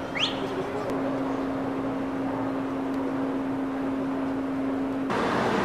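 Outdoor background noise with a steady low hum. A short rising chirp comes about a quarter second in. Just before the end the background changes abruptly, becoming louder and noisier, and the hum drops lower.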